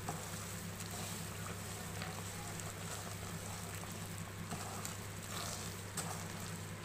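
Mysore pak mixture of gram flour, ghee and sugar syrup sizzling and bubbling in a pan as it is stirred with a wooden spatula, with faint scrapes now and then, over a steady low hum. The frothing ghee marks the last stage of cooking, when the mass is nearly done and starts to leave the sides of the pan.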